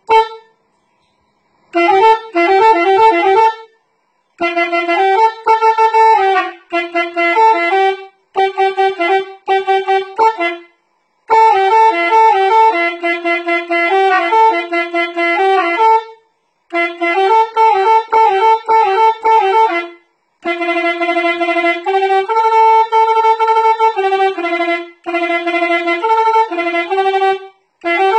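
Unaccompanied melody on a single instrument, one note at a time, played in phrases of a few seconds with short silent pauses between them.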